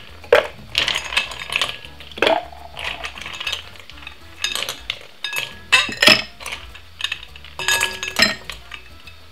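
Ice cubes clinking and knocking against glass as they are taken from a glass bowl and dropped into a tall drinking glass: a string of separate, irregular clinks, some with a brief glassy ring.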